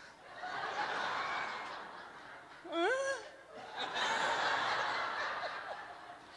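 Audience laughing in two waves, the second starting about four seconds in. A single short vocal cry comes between them, about three seconds in.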